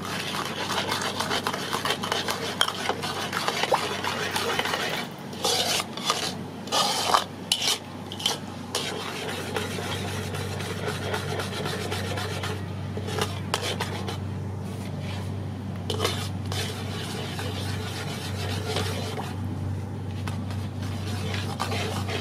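Metal ladle stirring and scraping around a wok of simmering sauce, with several louder scrapes and clanks against the pan about five to eight seconds in.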